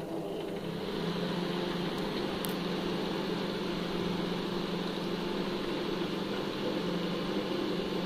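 Microwave oven powered up with its cover off, its cooling fan motor running with a steady hum and whir. The magnetron's high-voltage transformer gets no power, which the repairer puts down to a control board fault, so the oven runs without heating.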